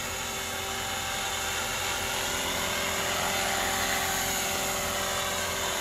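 Thunder Tiger Mini Titan electric RC helicopter flying low: a steady whine of motor and rotor blades that swells slightly in the middle.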